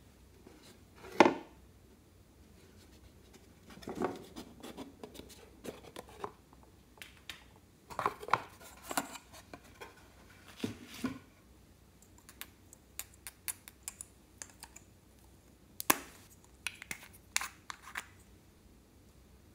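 Hands handling a packaging box and small plastic containers: scattered clicks, taps and scrapes of plastic in short clusters, the sharpest about a second in.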